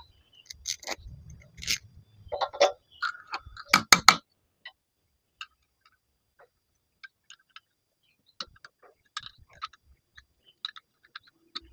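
Metal clicks and taps of a spanner working a nut on a mounting bolt at the steel foot of a homemade lathe bed. The clicks come thick and louder in the first four seconds, then thin out to scattered faint ticks.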